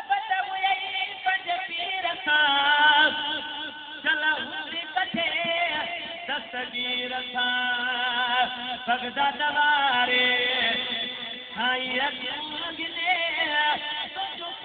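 A man chanting verses in long, wavering held notes.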